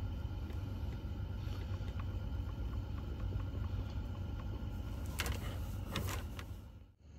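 A steady low mechanical hum, with a few short clicks or rustles of handling about five to six and a half seconds in.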